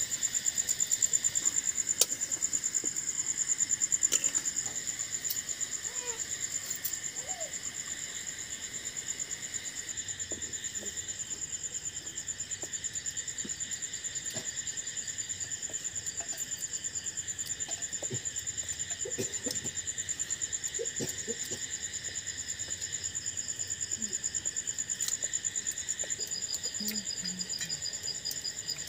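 Crickets trilling in a steady, high, continuous night chorus, with a second pulsing trill joining near the end. Faint scattered clicks are heard under it.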